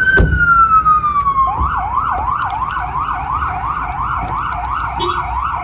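Emergency vehicle siren passing close: a slow wail falling in pitch switches, about a second and a half in, to a fast yelp of about three rising sweeps a second.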